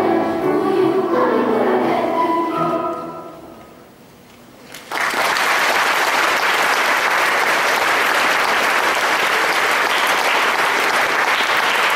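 Children's choir with piano finishing a song, the last held chord fading away; after a short lull, audience applause breaks out suddenly about five seconds in and continues steadily.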